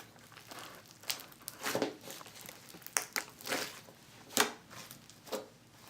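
Butter slime being squished and poked by hand, giving a scatter of short, irregular crackles and soft pops.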